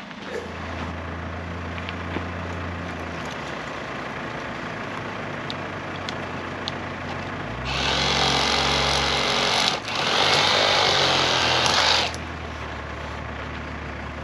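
A handheld power saw cutting through a dead branch in two loud bursts of about two seconds each, with a short break between them, about eight and ten seconds in. Under it a vehicle engine idles steadily.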